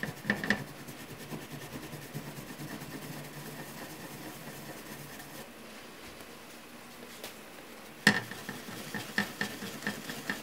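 Hands handling a bare graphics card board and working old thermal paste off its GPU chip. Scattered clicks and knocks against the board, a sharp knock about eight seconds in, then a quick run of light clicks.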